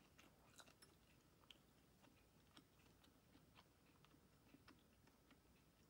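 Near silence: room tone with faint, irregular clicks.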